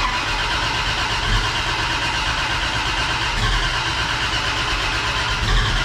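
Freshly rebuilt race engine turning over on its first startup, a steady, even mechanical din from a just-charged battery and starter.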